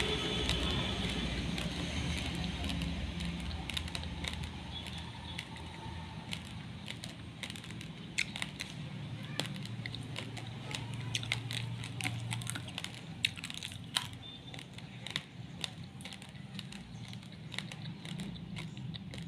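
Raw basmati rice grains crunched between the teeth: irregular sharp crackling clicks, busiest in the middle, over a low background hum that fades away.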